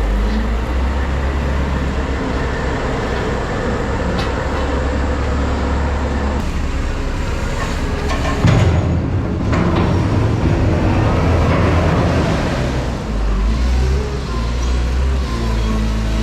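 Heavy diesel machinery engine running steadily, its pitch shifting as it works, growing louder and busier for a few seconds around the middle.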